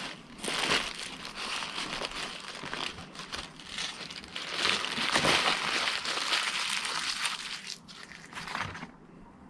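Fast-food paper wrapping crinkling and rustling as it is handled and unwrapped, stopping shortly before the end.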